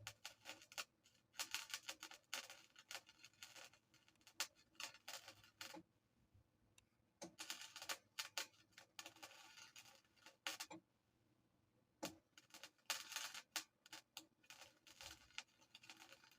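Welding arc crackling in short bursts of about a second each, with pauses between, as the gas tank is tack- or stitch-welded.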